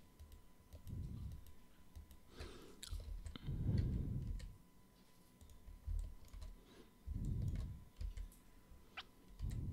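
Faint computer mouse clicks and keyboard presses, scattered sharp clicks as vertices are extruded, with several soft low-pitched swells between them.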